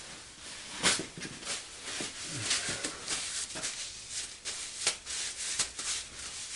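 Blue shop paper towel being pulled, rustled and crumpled by hand: a run of dry crinkles and crackles, with a louder crackle about a second in.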